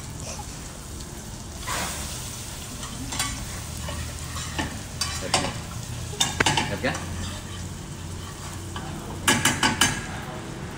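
Chopped onion sizzling in butter in a frying pan while a metal spoon stirs it, scraping and knocking against the pan, with a quick run of four taps near the end. A steady low hum runs underneath.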